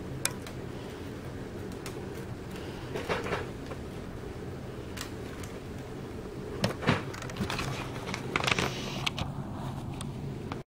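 Scattered plastic clicks and knocks from a LEGO model rifle being handled, with a cluster about three seconds in and the loudest run of clicks between about seven and nine seconds, over a steady background hum.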